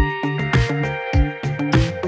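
Background electronic music with a steady beat, drum hits about twice a second under held synth notes.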